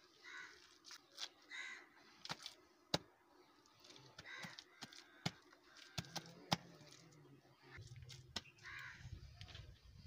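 Crows cawing, several single harsh caws spread a few seconds apart, with a few sharp clicks and pats from hands working damp clay and sand.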